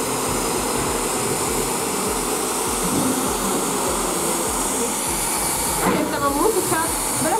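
Handheld hair dryer running steadily, a constant blowing hiss as it is worked over hair with a round brush. Voices come in near the end.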